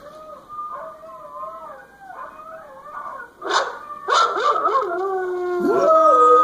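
Pitbull trying to howl: a string of short, wavering, breaking notes, then from about four seconds in a louder, longer howl held near the end.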